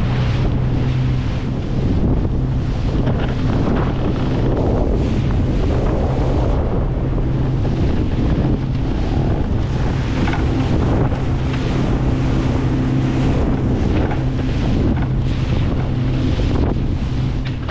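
Leisure boat running at speed: its engine gives a steady low hum under heavy wind rushing on the microphone and the hull splashing through the waves.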